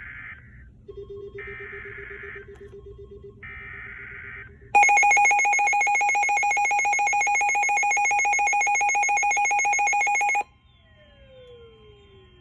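Emergency Alert System SAME header: three short bursts of digital data screech about a second apart, followed by the loud two-tone EAS attention signal, held for about six seconds and cutting off abruptly. Only faint tones remain after it.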